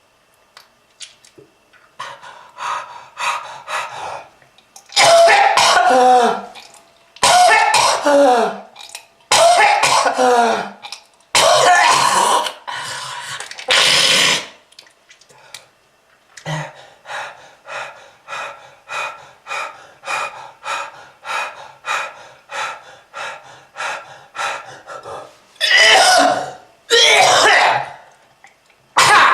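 A person coughing hard in a smoker's coughing fit. There are several long, loud hacking coughs with a falling, groaning voice, then a long run of short, quick coughs about two a second, then two more long hacks near the end.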